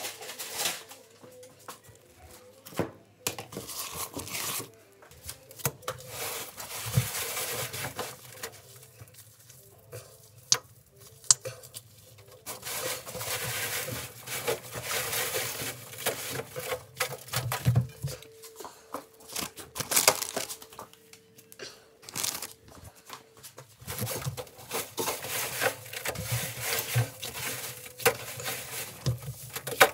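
Granular laundry powder being spread and worked by a rubber-gloved hand over the wash load, a gritty rustling and crinkling that comes in irregular bursts.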